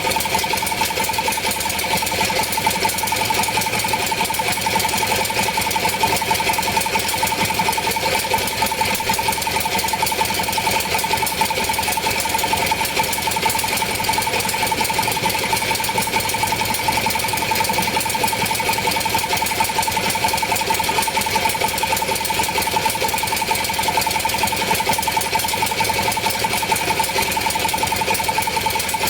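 A motor-driven machine running steadily, with a fast, even rattle and a steady high whine.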